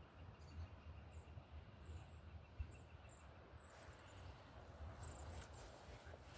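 Near silence: faint outdoor ambience, a low rumble with scattered faint high-pitched chirps.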